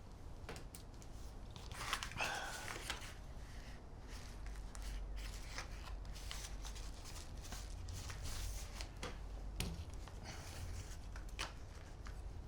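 Packaging being handled by hand: rustling, tearing and scattered clicks, as of a parcel being opened.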